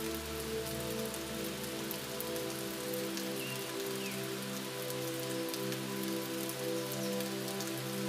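Steady rain with the patter of individual drops, laid over ambient music of low, held notes that change slowly.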